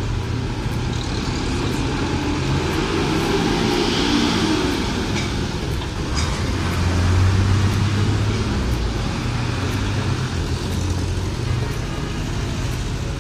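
Trucks, motorcycles and a car driving past at close range, their engines running. One engine revs up about three seconds in, and a heavier truck engine rumbles loudest around seven to eight seconds in.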